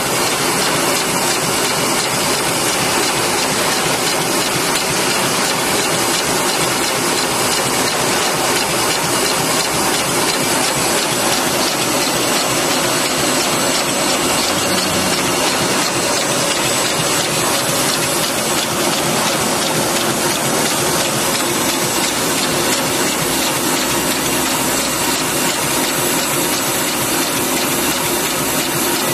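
Automatic desiccant packing machine running at steady speed: an even, continuous mechanical clatter over a hiss.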